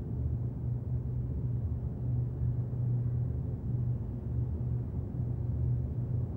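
A low, steady rumbling drone with a slowly pulsing level and almost nothing in the higher range.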